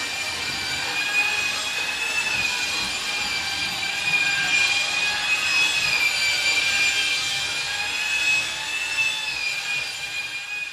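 Shop vacuum running steadily, its motor giving a constant high whine over a rushing hiss.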